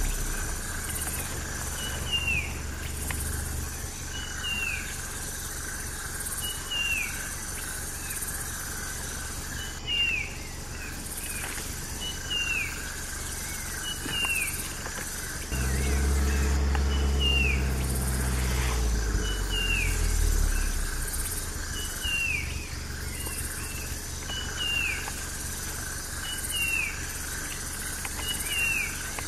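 A bird repeats a short falling chirp every couple of seconds over a pulsing high insect hum. A low rumble runs underneath and grows much louder for about five seconds midway.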